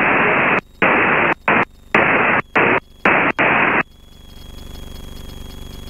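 Aircraft radio static through the headset: several loud bursts of hiss that switch on and off abruptly over about four seconds. After that comes a much quieter steady cabin drone.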